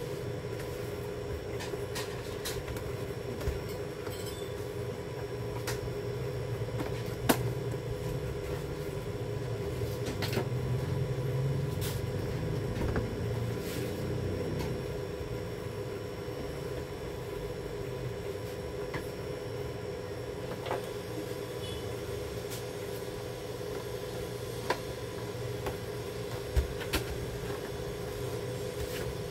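Plastic PC monitor being handled, turned over and set down on a foam mat: a few short knocks and clicks of its casing over a steady background hum.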